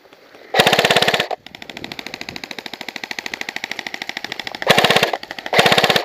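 Airsoft electric guns firing full-auto: three short, loud bursts of rapid shots. Between the first and second bursts comes a quieter, longer stretch of continuous rapid fire lasting about three seconds.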